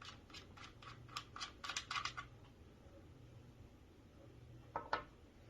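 Magazine cap (barrel-retaining knob) of a Benelli Nova 12-gauge pump shotgun being unscrewed by hand, giving a quick run of light clicks, about four or five a second, for roughly two seconds. Two sharper clicks follow near the end.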